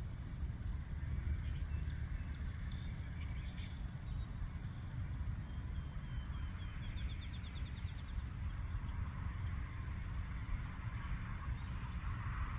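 Steady low outdoor rumble with faint, high chirping calls from an unseen animal, including a quick trill of about ten notes a second in the middle.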